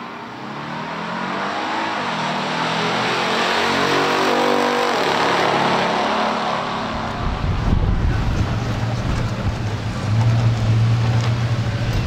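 Big-block V8 muscle cars accelerating hard down a drag strip, the engine note climbing in steps through the first five seconds. From about seven seconds in, a deeper, closer low rumble takes over.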